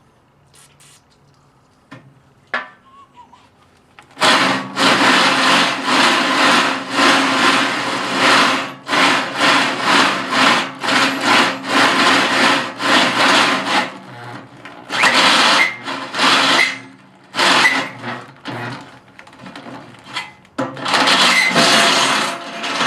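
Power drill with a 3/4-inch bit drilling through the steel bucket lip, run in repeated bursts of about half a second to a second. It starts about four seconds in and pauses briefly a few times.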